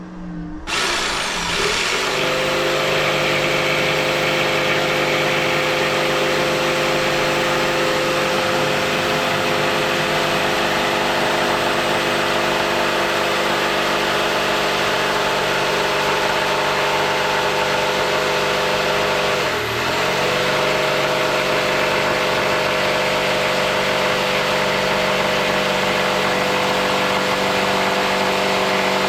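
A motor spinning up about a second in and then running at one steady pitch, with a brief dip in pitch and level about two-thirds of the way through.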